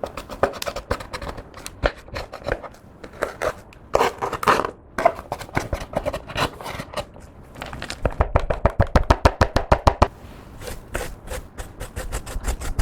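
Clear slime being kneaded and pressed by hand: a continuous stream of sticky clicks, pops and squelches, with a quick, regular run of clicks about two-thirds of the way through.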